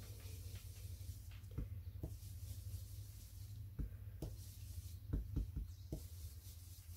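Fingertip dabbing ink through a thin plastic stencil onto card: faint rubbing and irregular soft taps, several in quick succession near the end, over a steady low hum.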